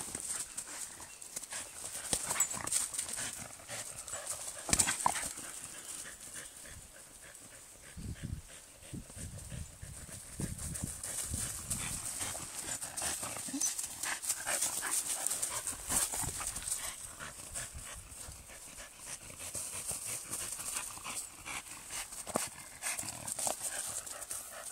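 A dog running and dribbling a football through dry fallen leaves: the leaves rustle and crackle under its paws in many short irregular crunches, with taps from the ball.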